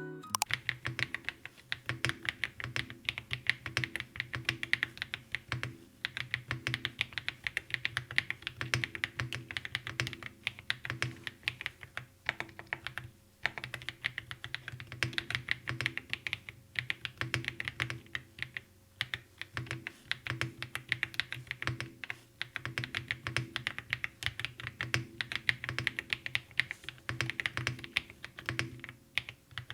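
Typing on a Monstar Gatts X500 Pro full-size keyboard with pebble-shaped round keycaps: fast, continuous keystroke clacks with a few short pauses.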